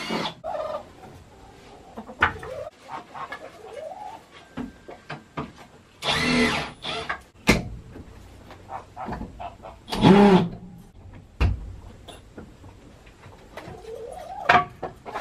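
Domestic hens clucking, with two louder squawking calls about six and ten seconds in. A few sharp knocks come in between, from work on the wooden roost bars.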